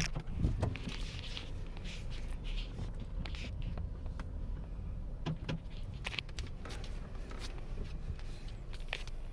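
Low, steady rumble of a car moving slowly, heard inside the cabin, with scattered sharp clicks and knocks and a louder thump about half a second in.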